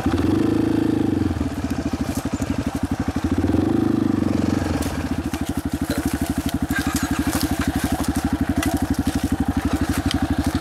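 Off-road vehicle engine running at low revs with an even throb, picking up briefly about half a second in and again around four seconds in. Stones and gravel crackle under the tyres as it drives slowly over the rough dirt track.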